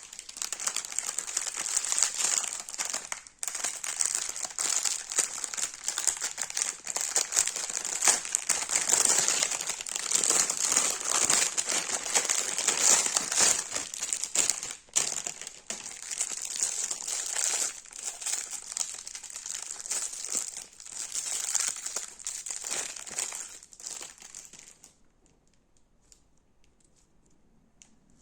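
Crunchy slime being worked by hand, giving a dense, continuous crackling and crinkling that stops abruptly a few seconds before the end.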